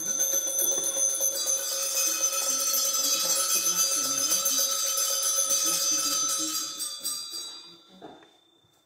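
Altar bells (sanctus bells) shaken in a continuous bright jingling ring at the elevation of the Host, just after the words of consecration. The ring starts suddenly, holds for about seven seconds and dies away.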